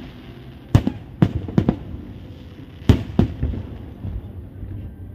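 Aerial fireworks shells bursting: about six sharp bangs in two quick clusters, the loudest about three seconds in.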